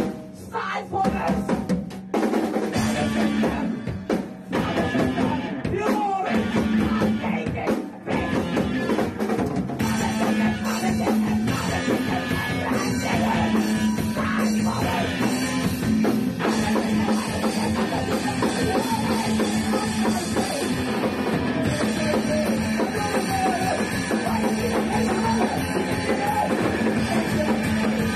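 Punk rock band playing: drum kit, electric guitar and a woman singing. The first several seconds are stop-start hits with short breaks, then the full band plays on without a break from about ten seconds in.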